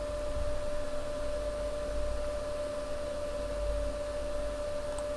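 Steady background hum and hiss with one constant mid-pitched tone, the recording's own noise floor with no other sound.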